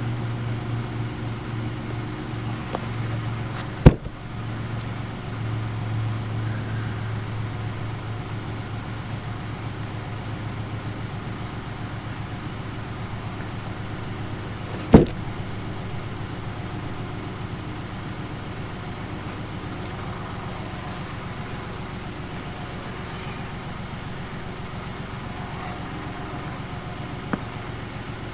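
An engine running steadily at an even idle, with two sharp, loud knocks, one a few seconds in and one about halfway, and a lighter knock near the end.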